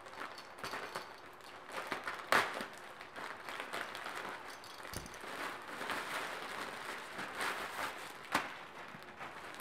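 Plastic mailer bags crinkling and rustling as clothes are unpacked from them, with a sharper crackle about two seconds in and another near the end.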